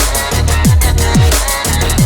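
Background electronic music, drum and bass, with a fast beat and deep bass notes sliding downward about twice a second.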